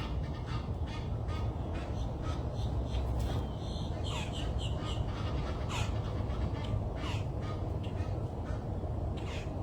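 Crows cawing: a string of short, harsh calls, each falling slightly in pitch, coming about once a second over a steady low rumble.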